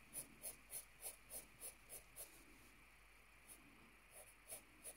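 Graphite pencil shading on paper: faint, quick scratchy strokes about three a second, stopping about two seconds in, then a few scattered strokes near the end.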